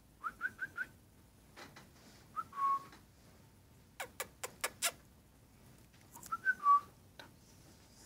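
Cockatiel whistling: four quick rising chirps, then two phrases that end in a short held whistle, the loudest near the end. About four seconds in, five sharp clicks in quick succession.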